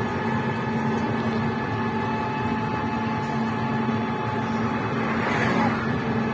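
Steady running hum and road noise of an open-sided passenger vehicle in motion, heard from the passenger bench, with a brief louder rush about five seconds in.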